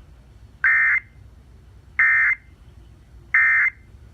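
Emergency Alert System end-of-message signal: three short, buzzy bursts of SAME digital data tones, about 1.3 seconds apart, closing the national EAS test.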